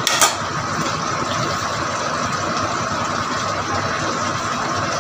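Tomato-based menudo sauce bubbling hard in a nonstick wok on the stove as it reduces down: a steady bubbling hiss. One short sharp click sounds just after the start.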